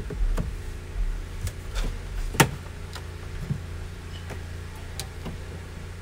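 Plastic trim tool prying at a car door trim panel: a string of short, sharp plastic clicks and taps, the loudest about two and a half seconds in, over a steady low hum.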